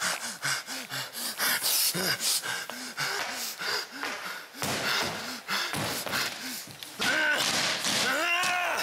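A man's voice making wordless creature noises: quick sniffs, gasps and short grunts one after another, with a couple of longer rising-and-falling calls near the end.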